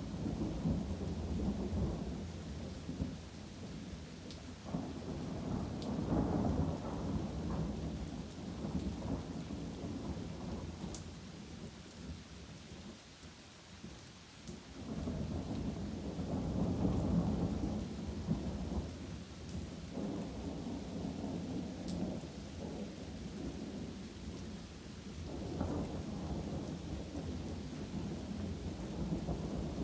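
Thunder rumbling almost without pause over steady rain, swelling about a fifth of the way in and loudest just past the middle after a brief easing. Faint ticks of raindrops sound throughout.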